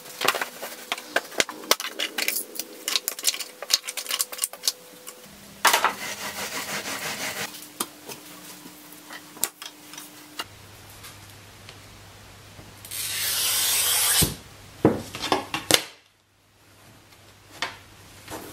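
Handling noise while setting up to cut a sheet of glass: a run of clicks and knocks, a rubbing stretch, and about thirteen seconds in a loud, high scratching hiss lasting just over a second, a glass cutter's wheel scoring the glass along a straightedge.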